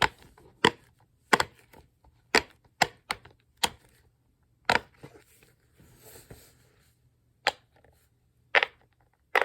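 Silicone pop-it fidget toy having its bubbles pressed one at a time, each giving a sharp pop. There are about ten irregularly spaced pops, some in quick pairs, with gaps of a second or more between others.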